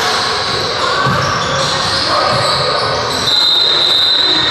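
Basketball game in a reverberant gym: a ball bouncing on the hardwood court over a background of voices, then a referee's whistle blows one steady note for about a second, about three seconds in, stopping play.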